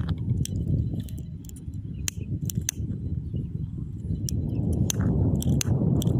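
Low wind rumble on the microphone with scattered sharp clicks and pops throughout; the rumble grows louder over the last two seconds.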